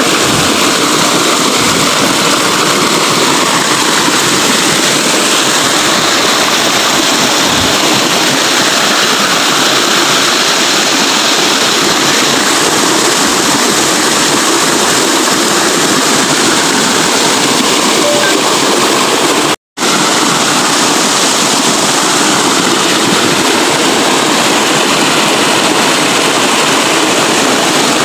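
Small waterfall rushing over rocks close to the microphone: a loud, steady, even noise of falling water. It cuts out completely for a split second about twenty seconds in.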